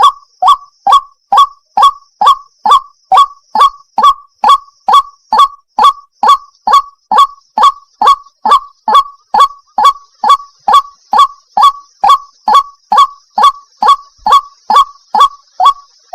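White-breasted waterhen (ruak-ruak) calling, the same short falling call repeated evenly about twice a second. The uploader labels it a female calling to a male.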